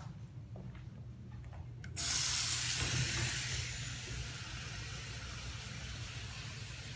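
A water tap turned on about two seconds in, water running steadily into a sink, being checked for leaks. A low steady hum underlies it.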